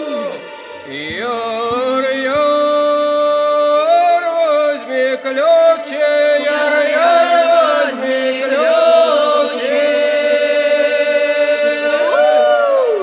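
Slow folk singing of long held notes over a steady low drone, with a note that swoops up and falls away near the end.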